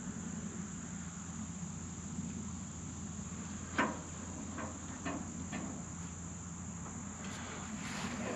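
A steady, high-pitched insect chorus, with one sharp knock about four seconds in and a few lighter clicks after it as the solar panel's mounting bracket is handled on the tractor's front.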